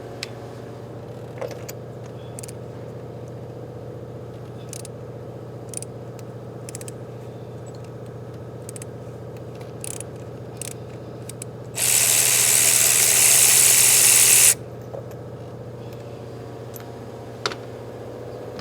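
Ratchet and spark plug socket clicking and tapping now and then while a spark plug is loosened, over a steady background hum. About twelve seconds in, a loud hiss of air runs for nearly three seconds and then stops suddenly.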